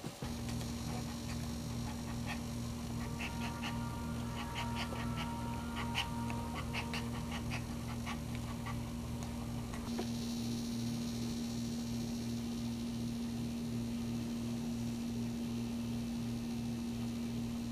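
A whelping dog panting fast and regularly, about three breaths a second, over a steady hum. In the first half there is a run of short, high squeaks.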